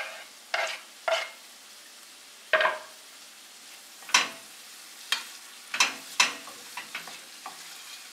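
Wooden spoon pushing diced bell peppers off a wooden cutting board into a stainless-steel pot, then stirring them into onions frying in oil. It comes as a series of short scrapes and knocks, about a dozen, over a faint steady sizzle.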